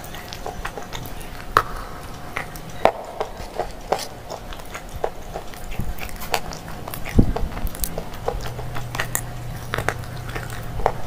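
Close-up biting and chewing of crunchy grey slate chunks: sharp, irregular cracks and crunches, one or two a second.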